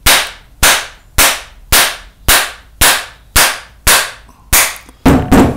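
Heavy mallet striking the trunnion pin of an MGB front stub axle to drive it out of the housing: nine sharp blows at about two a second, then a quicker, louder cluster of knocks near the end.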